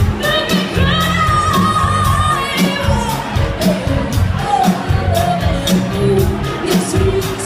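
Loud pop music with a singing voice, the sung notes held and gliding over a steady drum beat.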